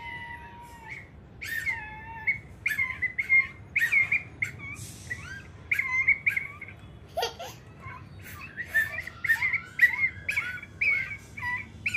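Plastic toy whistle blown by a toddler, giving strings of short warbling, bird-like chirps with gaps between them. A steady high tone stops about a second in.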